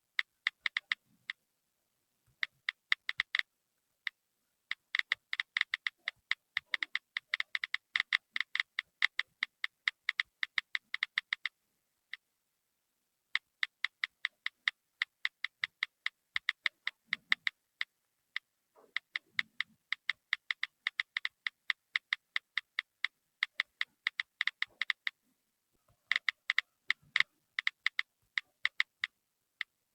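Smartphone on-screen keyboard key-press clicks: quick runs of short, identical clicks broken by pauses of a second or two, as of someone typing on a touchscreen.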